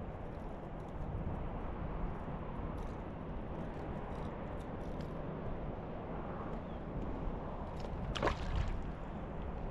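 Sea water lapping and sloshing against a kayak's hull, with a few light clicks of handling. A single short, sharp sound stands out about eight seconds in.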